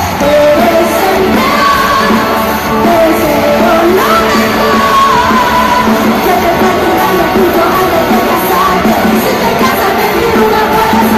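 Live band music played loud through an arena sound system, with a sung lead melody and the crowd shouting along, heard from among the audience in a large reverberant hall.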